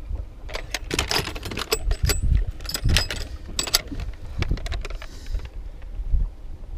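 A quick run of small metallic clicks and rattles over a low rumble, thinning out about four seconds in.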